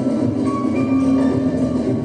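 Samba music playing, a melody of short held notes over a steady accompaniment.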